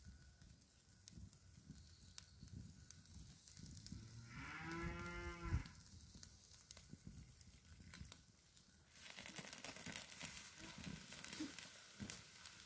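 A cow moos once, about four seconds in, a single call lasting just over a second. From about nine seconds a steady hiss with crackles rises: chicken pieces grilling over charcoal.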